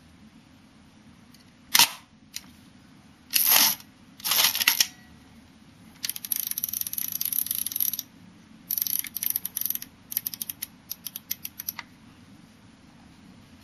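Mechanism of a 1953 Hasselblad 1000F camera body worked by hand: a sharp click about two seconds in, then short rasps, two longer ratcheting runs and a quick run of small clicks near the end as the knob on top of the body, engraved with shutter speeds, is turned.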